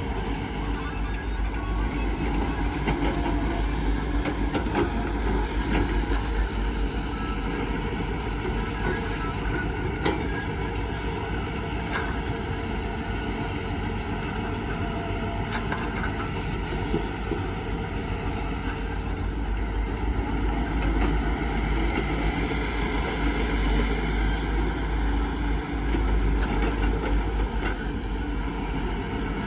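Steady rumble of a heavy vehicle engine running, with a few short knocks or clanks.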